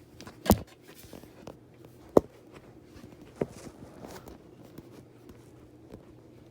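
Low steady hum from a running Minka Aire Supra ceiling fan, with three sharp knocks about half a second, two seconds and three and a half seconds in; the middle knock is the loudest.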